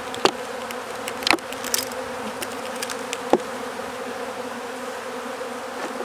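Many honey bees flying around an opened hive, a steady buzzing hum, with a few short light clicks over it.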